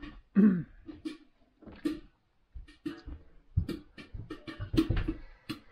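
Popcorn popping in a lidded steel pot: irregular sharp pops, several a second, some with a short metallic ring, as the batch nears done. A brief low voice sound comes right at the start.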